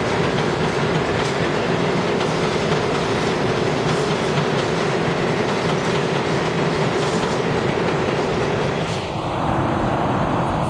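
New York City subway train running past through an underground station, a steady loud rumble and rattle of the cars with wheels clicking over the rail joints.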